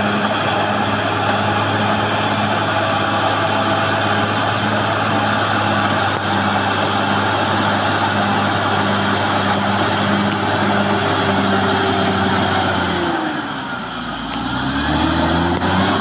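Caterpillar D6R XL bulldozer's diesel engine running steadily under working load. Near the end the engine note drops sharply in pitch and loudness, then climbs back up about two seconds later.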